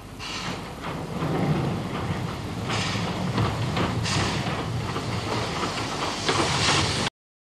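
Former Great North of Scotland Railway Class F 4-4-0 steam locomotive Gordon Highlander running past, a noisy rumble that grows louder as it approaches, with a few hissing surges, then cuts off suddenly near the end.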